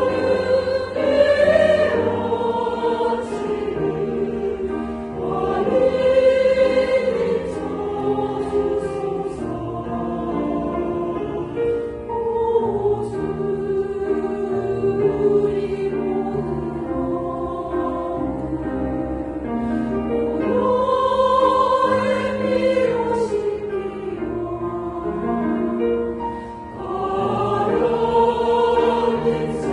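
Church choir singing a hymn in harmony, long held notes swelling and easing off, loudest a few seconds in and again about two-thirds of the way through.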